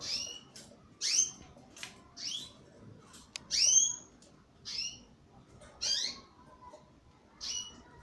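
Canaries calling: short, high chirps, each one a quick sweep in pitch, repeated about once a second.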